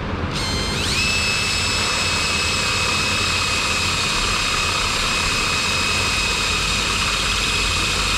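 High-speed motor spinning up in the first second to a steady high-pitched whine, with a low hum underneath.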